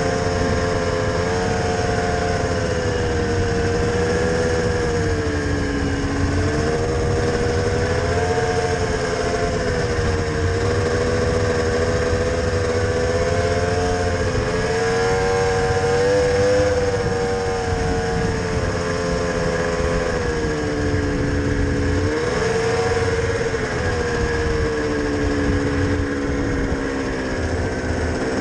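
Snowmobile engine running under way, heard from the rider's seat, its pitch rising and falling with the throttle and dropping lower for a few seconds at a time, about six seconds in, about twenty seconds in, and again near the end.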